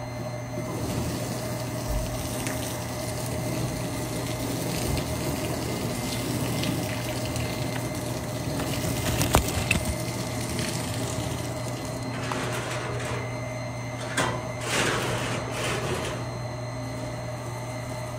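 Water spraying from a garden hose and splashing against a concrete wall, a continuous hiss, louder for a few seconds near the end, over a steady low hum.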